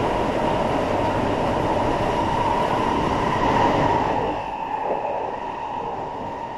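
Interior running noise of an SMRT C651 metro train in motion: a dense rumble of wheels on rail with a steady high band of sound, dropping noticeably in loudness about four seconds in.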